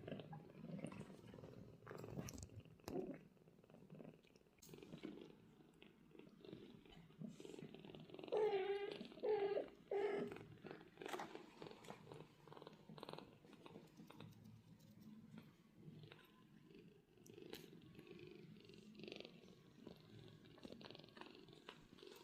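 British Shorthair cats purring, with three short meows in quick succession a little over eight seconds in, the loudest sounds here. Light clicks and rustles are scattered throughout.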